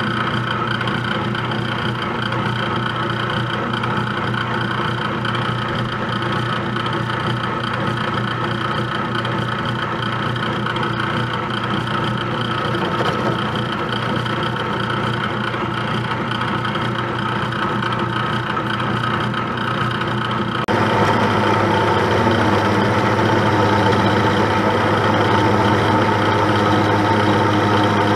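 Milling machine running under load, a large cutter spinning as it bores down through a metal workpiece. The hum is steady; about two-thirds of the way in it shifts abruptly and gets louder.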